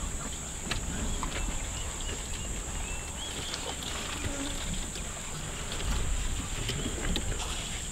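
Open-air ambience: a steady low rumble with scattered faint clicks and a few brief soft chirps, over a constant high-pitched whine.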